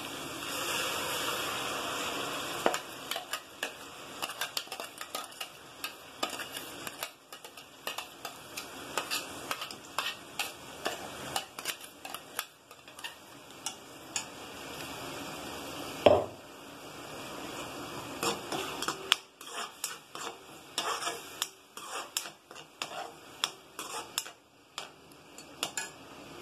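Slotted metal spoon stirring and scraping in a metal kadai while ground onion-tomato masala fries in hot oil with garlic paste. The sizzle is strongest in the first couple of seconds, with frequent clicks of the spoon against the pan and one louder knock about sixteen seconds in.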